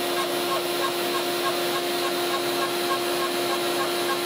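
CNC router spindle running with a steady whine while a V-bit plunges a row of halftone holes into painted plywood. A short chirp repeats about three or four times a second as the machine steps from hole to hole.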